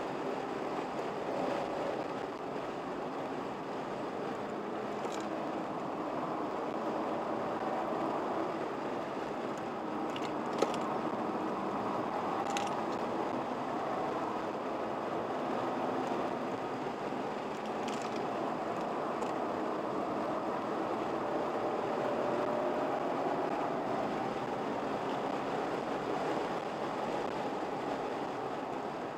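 Car engine and tyre noise heard from inside the cabin while lapping a race track at speed, a steady running sound with the engine note shifting a little through the corners. A few faint clicks or rattles, one sharp click about ten seconds in.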